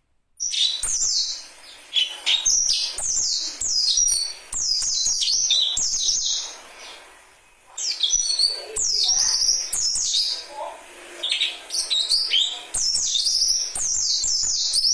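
Young birds chirping: dense runs of short, high, falling chirps, with a brief lull about seven seconds in.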